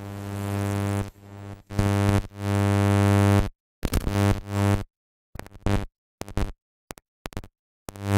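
Electrical buzz picked up by a webcam's built-in microphone: a low hum with a tall stack of evenly spaced overtones. It cuts in and out abruptly several times, in stretches of under a second up to about a second, and is loudest near the end.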